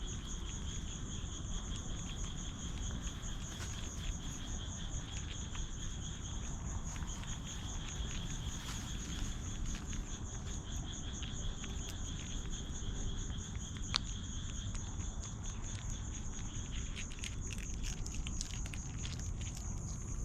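Crickets trilling steadily in a fast pulsing high chirr, over a steady low rumble. Scattered light clicks and rustles grow more frequent near the end.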